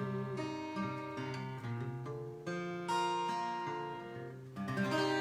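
Acoustic guitar playing a run of strummed chords, ending a song, with the last chord struck near the end and left ringing.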